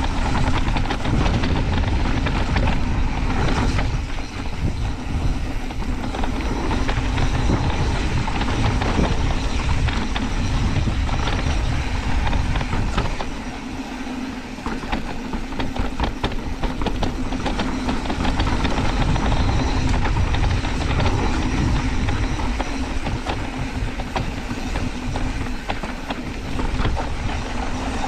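Wind buffeting the microphone and knobby tyres rumbling over dry dirt and rocks on a fast mountain bike descent, with the bike's frame and parts rattling and clicking over the bumps. The rumble eases briefly about halfway through.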